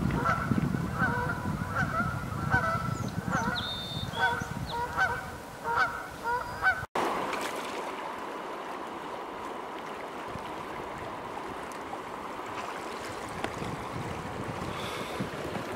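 Geese honking over and over, about two calls a second, with a low rumble of wind and water underneath. About seven seconds in, it cuts to the steady rush of a fast-flowing river.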